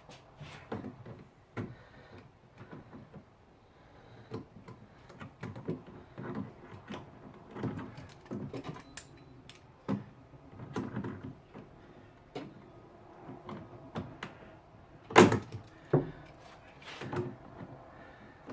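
Pliers and a spring hose clamp clicking, scraping and knocking in irregular bursts as the clamp is squeezed and worked over a coolant hose on a plastic overflow bottle. One sharp knock about fifteen seconds in is the loudest.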